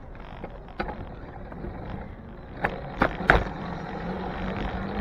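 Bicycle rolling over rough pavement, heard through a handlebar-mounted camera: a steady rumble of tyres and wind with several sharp knocks as the bike jolts over bumps, the loudest about three seconds in.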